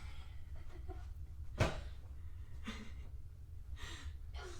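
Low steady room hum with a single sharp click or knock about a second and a half in, and a few faint breathy sounds afterward.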